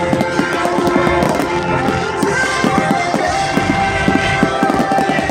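Fireworks display with music playing over it. Many sharp firework bangs and crackles come in quick, irregular succession over the music.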